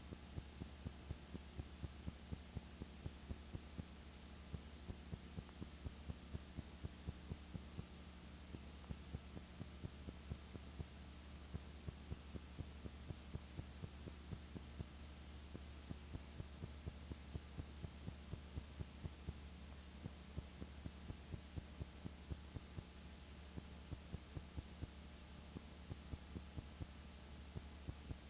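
Steady low electrical hum with faint regular ticks, about three a second, over a light hiss: the background noise of a transfer from a silent home movie, with no recorded sound of its own.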